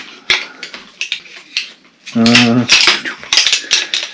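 Shock-corded aluminium pole sections of a Helinox Chair One frame clicking and clacking against each other as they are pulled apart and folded. A short hummed voice sound comes about halfway, followed by more rapid clicks.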